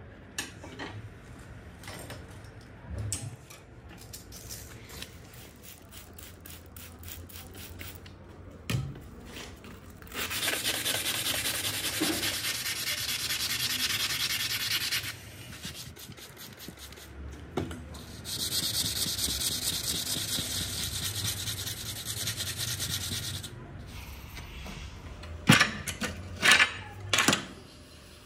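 Steel knife blade being hand-sanded with an abrasive pad: two long spells of rapid back-and-forth rubbing strokes. Near the end come three sharp knocks.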